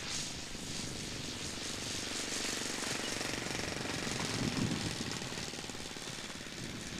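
Laser 180 four-stroke glow engine of a large-scale model Tiger Moth biplane ticking over at idle with a fast, even chugging as the plane lands and rolls out on grass. A brief louder rumble comes about four and a half seconds in.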